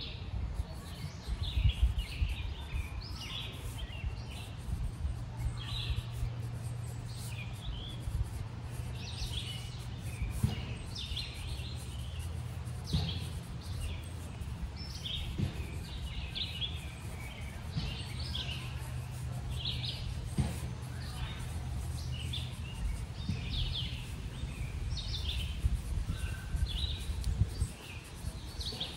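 Wild songbirds chirping, many short calls one after another, over a steady low background rumble.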